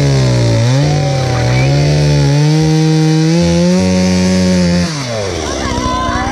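Two-stroke gas chainsaw at full throttle cutting through the trunk of a small pine tree. The engine note dips briefly under load about a second in, holds high, then falls back toward idle about five seconds in as the cut finishes and the throttle is released.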